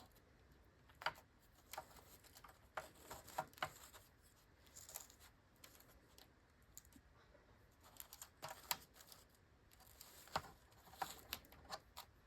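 Faint, irregular small clicks and rustles of hands pressing seedlings down into potting soil and handling plastic pots and cells, coming in clusters with a quieter stretch in the middle.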